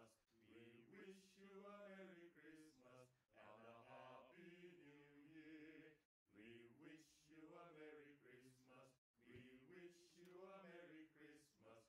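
Very faint singing voices, sustained and wavering in pitch, with brief total dropouts about six and nine seconds in.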